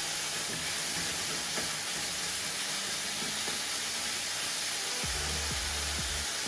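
Chicken and prawns sizzling in a hot wok as they are stir-fried: a steady frying hiss.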